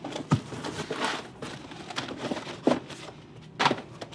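A few scattered light knocks and clicks over a faint noisy background. Three stand out: one shortly after the start, one past the middle and one near the end.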